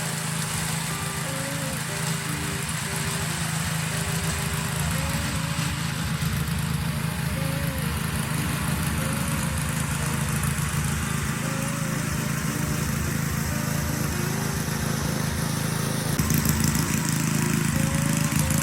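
Small gasoline engine running steadily, a little louder near the end, with light background music over it.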